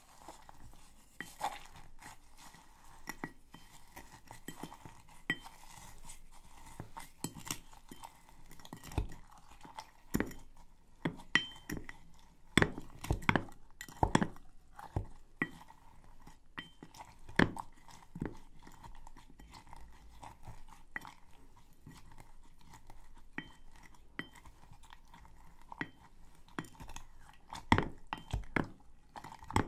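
Wooden spoon muddling perilla leaves with sugar and lemon in a glass tumbler: irregular crunching and scraping of the sugar and leaves, with knocks of the spoon against the bottom of the glass. The knocks come thickest and loudest in the middle and once more near the end.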